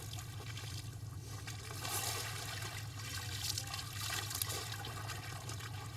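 Water trickling and splashing, irregular and busiest in the middle, over a steady low hum.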